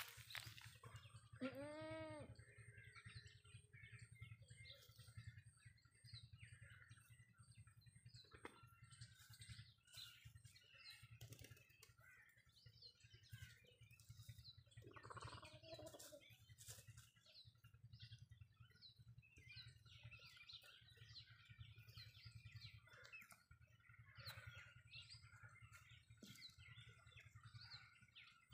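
Faint chirping of small birds throughout, with a drawn-out chicken call about two seconds in and a shorter call around the middle, over a low steady hum.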